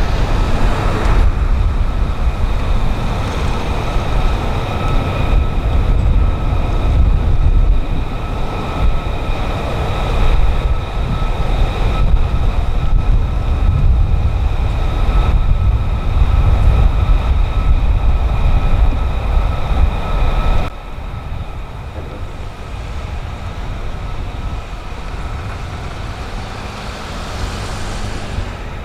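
Jet aircraft engine running: a deep rumble under a steady, even whine. The rumble drops away abruptly about twenty seconds in, leaving the whine.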